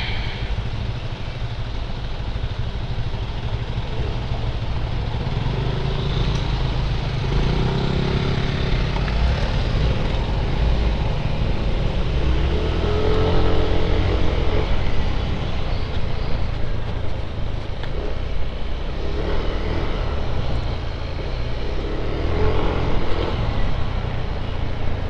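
Motorcycle on the move: the engine running under a steady heavy low rumble of wind and road noise, with the engine note rising and falling a few times.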